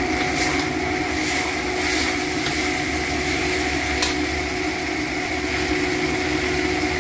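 Rice vermicelli, cabbage and carrot frying in a metal wok: a steady sizzle as it is stirred, with an occasional tap of the metal spatula. Under it runs a steady hum.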